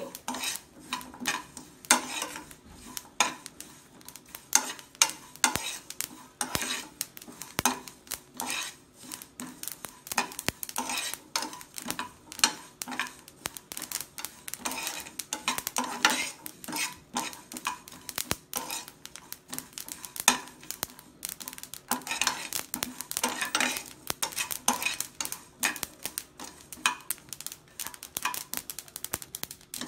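Steel ladle stirring and scraping seeds and dry coconut pieces around a dry nonstick pan as they roast, making a run of irregular clicks and scrapes.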